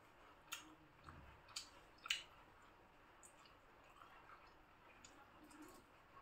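Near silence broken by a few faint wet clicks and squishes of eating by hand, steamed rice cake with sticky liquid date-palm jaggery; three sharper clicks come in the first two seconds or so, the last the loudest.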